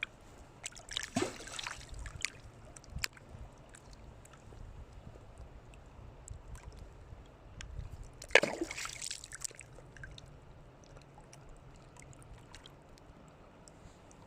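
Water sloshing and splashing, with two louder splashes about a second in and about eight seconds in, and scattered small clicks and drips between them.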